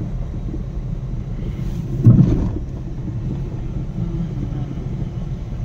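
Steady low rumble of a car's engine and tyres heard from inside the cabin while driving, with one short louder thump about two seconds in.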